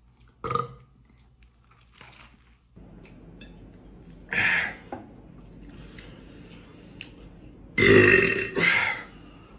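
A man burps a loud, long belch of about a second near the end, breaking into two parts. Shorter, quieter sounds come just after the start and about halfway through.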